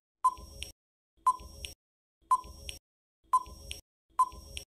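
Countdown timer sound effect: five short beeps, one a second, each starting with a sharp ping.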